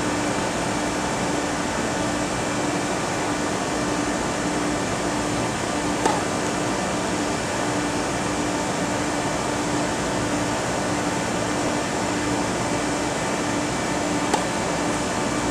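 Steady machine hum and hiss, like a fan or air-conditioning unit running, with a faint tone that pulses on and off. Two single sharp knocks cut through it, about six seconds in and near the end.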